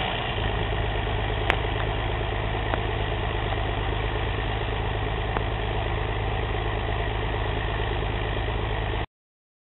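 Rába Steiger 250 tractor's diesel engine running steadily with a deep rumble, with a few faint clicks; the sound cuts off suddenly about nine seconds in.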